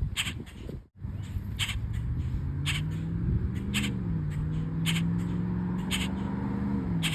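A bird calling repeatedly, short harsh calls about once a second, over a low steady hum that sets in a couple of seconds in.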